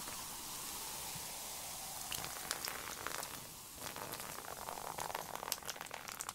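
Carbonated drink foaming out of a just-opened, shaken can: a steady fizzing hiss full of small crackling pops, with the foam spattering and dripping onto the floor.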